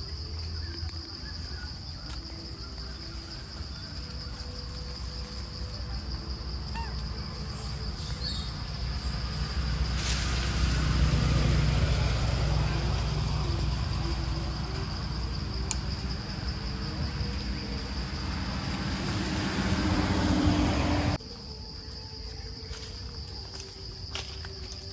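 Steady high-pitched drone of forest insects. Under it, a low rushing noise swells through the middle and cuts off suddenly near the end.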